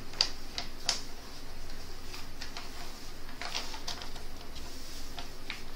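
Clear plastic protective sheet on a diamond painting canvas rustling and crackling as it is handled and smoothed back down, in short irregular crinkles and light clicks.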